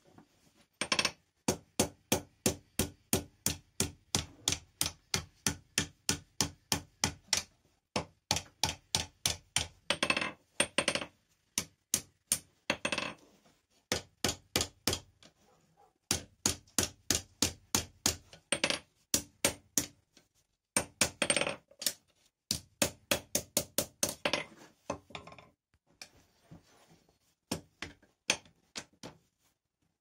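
Hand hammer striking a red-hot steel bar on a steel anvil, about three sharp, ringing blows a second in runs of several seconds with short pauses between. The blows turn lighter and sparser in the last few seconds.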